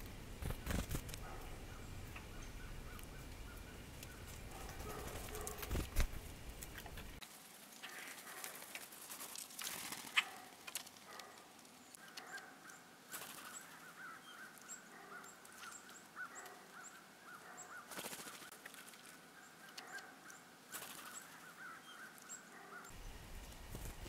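Wild birds calling repeatedly, with short calls and thin high chirps, and scattered sharp taps.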